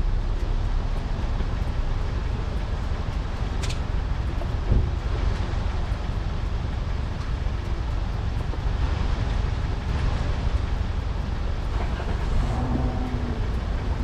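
A motorcycle on the move, its engine running under a steady rumble of wind on the microphone, with a sharp tick a few seconds in and a thump just after.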